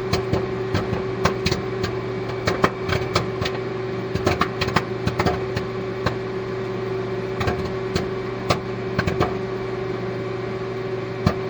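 A steady machine hum with many irregular sharp clicks and pops over it.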